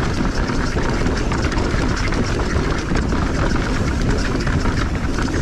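Mountain bike riding fast downhill on loose, sandy dirt: tyres rolling and crunching over the trail, with the bike rattling over bumps and wind rushing on the microphone.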